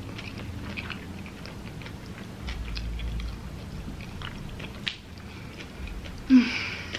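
A person chewing a mouthful of fried chicken sandwich with the mouth closed, with many small wet mouth clicks. A short, louder mouth noise comes near the end.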